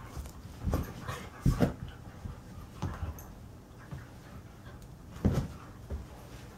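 An Alaskan Husky and a young Karelian Bear Dog roughhousing: scattered short dog whines and play noises with scuffling, the loudest bursts about a second and a half in and again past five seconds.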